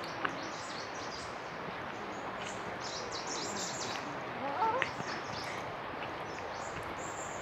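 Forest ambience: small birds chirping in short, high calls over a steady background hiss, with a brief louder rising sound about four and a half seconds in.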